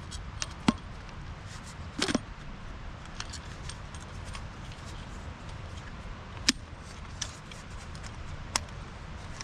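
Scattered sharp metallic clicks and clinks of tools and parts being handled in a car's engine bay, the loudest about two seconds in and again about six and a half seconds in, over a low steady background rumble.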